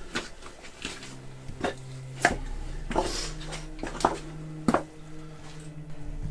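Footsteps and knocks of someone scrambling up a steep, rocky mine passage: about seven sharp clatters of boots on loose stone, each close and echoing in a small space, over a low steady hum.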